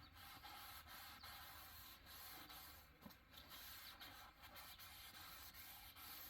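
Faint, steady trickle of engine oil draining out of a Predator 212 engine's crankcase.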